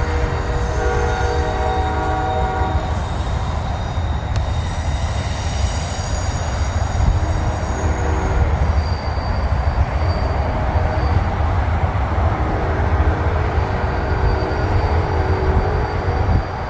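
Distant train horn sounding in long, steady chord blasts: one at the start lasting about three seconds, a short one about eight seconds in, and a longer one from about twelve seconds in until near the end. A steady low rumble runs beneath the horn throughout.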